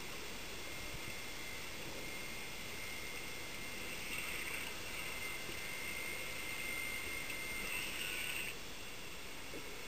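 Steady underwater hiss with a faint high-pitched whine. The whine grows louder about four seconds in and cuts off suddenly near the end.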